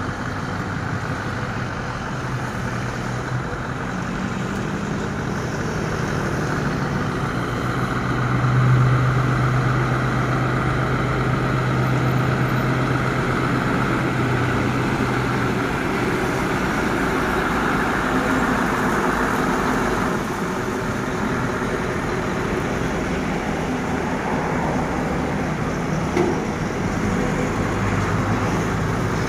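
Scania R580 V8 truck engine running as the tractor unit hauls a heavily loaded low loader slowly past, with tyre and road noise. The engine is loudest about nine seconds in.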